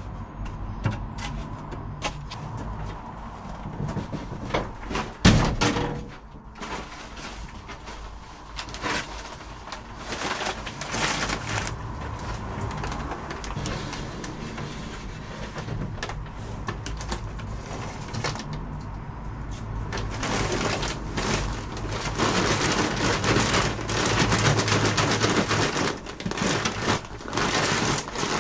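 Building sand being poured from a bag and spread over a propagation bench: a gritty hiss with scraping, rustling and small knocks, plus one sharp knock about five seconds in. The pouring gets louder and denser about two-thirds of the way through.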